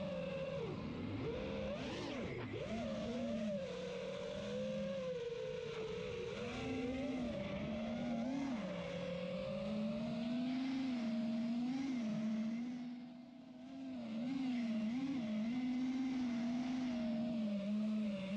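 FPV racing drone's motors and propellers whining, the pitch rising and falling constantly with throttle. It sweeps sharply about two seconds in and briefly dies down near thirteen seconds, as the throttle is cut and punched again.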